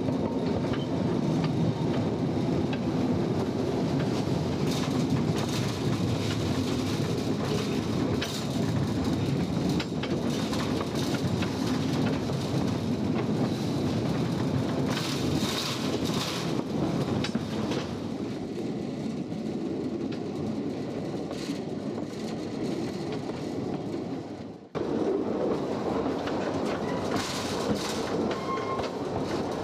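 Narrow-gauge mine railway train running along the track, its wheels clattering over the rail joints with frequent clicks and knocks. The sound drops out suddenly for a moment near the end, then carries on.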